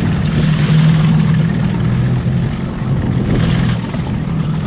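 Small outboard motor running steadily at trolling speed, a low even hum under the rush of wind and water.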